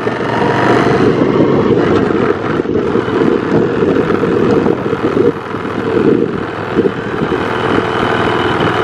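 Motorbike engine running while riding along a road, with wind noise on the microphone.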